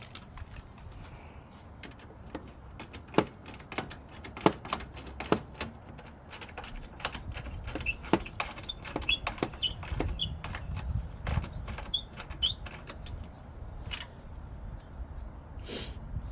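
Irregular metallic clicks and clinks of a socket wrench and sockets working bolts, some clicks with a short metallic ring, with a low handling rumble partway through.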